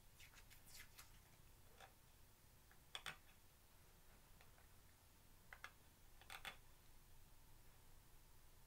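Near silence, with a few scattered faint clicks and rustles of a small container being handled in the hands.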